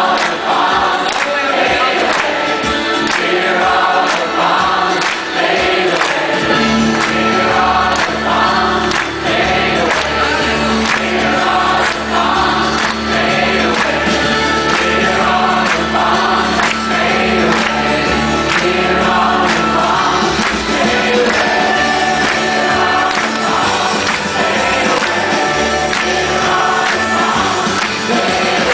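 Many voices of a concert audience singing a repeated refrain together with the band, over a steady beat; a low sustained bass note comes in about six seconds in.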